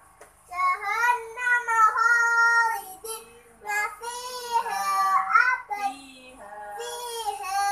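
A young girl singing in a chanted, recitation style, holding long notes that slide up and down, in phrases with short breaks between them.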